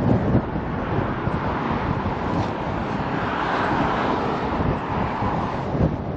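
Wind buffeting the microphone over a steady outdoor rumble.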